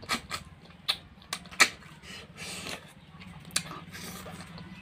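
Close mouth sounds of a person eating snail curry and rice by hand: wet lip smacks and chewing clicks, the sharpest about a second and a half in, with a short breathy suck around halfway. A faint steady low hum runs underneath.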